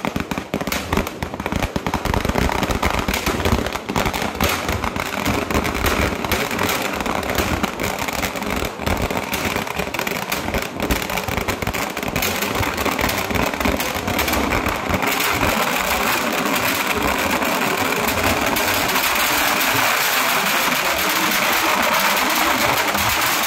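Kerala temple fireworks (vedikkettu) going off at ground level: a rapid, dense barrage of firecracker blasts. From about fifteen seconds in it merges into a near-continuous crackle of explosions.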